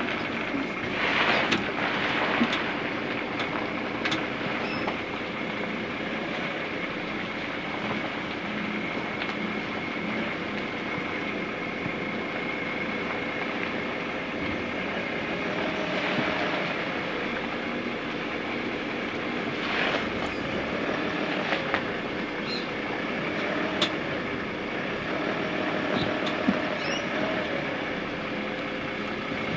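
Tow vehicle engine running at low speed with its tyres rolling over a dirt driveway while it slowly manoeuvres a heavy caravan. A few light knocks and clicks sound now and then.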